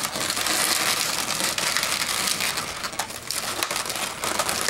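Latex modelling balloons rubbing and squeaking against each other and the hands as they are twisted and locked together, a continuous crackly rubbing with many small squeaks.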